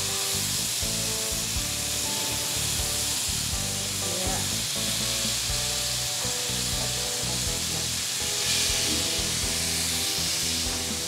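Marinated sate maranggi skewers sizzling on a lightly oiled ridged grill pan as they are laid down one by one. The hiss grows louder near the end.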